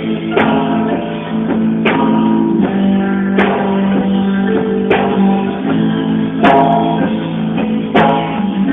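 Live band music in an instrumental guitar passage with no singing, a strong chord accent coming about every second and a half.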